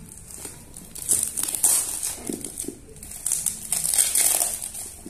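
Paper wrapping and packing tape crinkling and rustling as hands peel them off a plant pot, in uneven bursts starting about a second in, with a couple of soft knocks in the middle.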